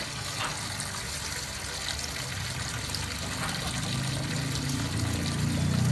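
Tap water running steadily into a stainless-steel sink filled with water and dried red chillies.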